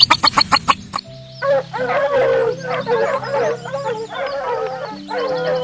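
A flock of chickens clucking and squawking, many calls overlapping, over background music. The first second holds a quick run of about eight sharp clicks before the clucking starts.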